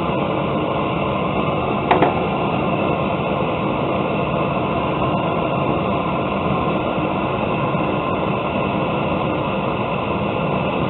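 Gas torch burner firing into a coffee-can forge, running with a steady rushing hiss as a knife blade heats for hardening. A single short click about two seconds in.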